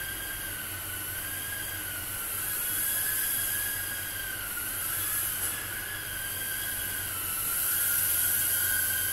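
Tiny whoop micro drone's motors and propellers whining steadily in flight, the pitch rising and falling a little as the throttle changes, with swells in loudness about three seconds in and again near the end.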